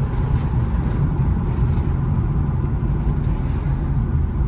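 Steady low rumble of a car engine running, with no clear changes in pitch or strokes.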